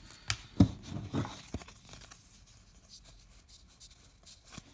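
Baseball cards being handled and flipped through, with a few soft taps and rustles in the first second and a half, then only faint ticks.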